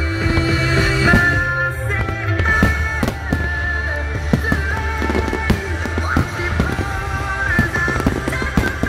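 Aerial firework shells bursting in quick succession, many sharp bangs and crackles, over loud music with held notes and a steady bass.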